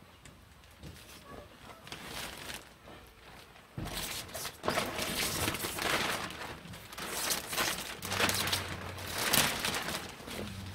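Clear plastic greenhouse film crackling and rustling as it is pulled and handled over the frame; scattered crackles at first, then loud and almost continuous from about four seconds in.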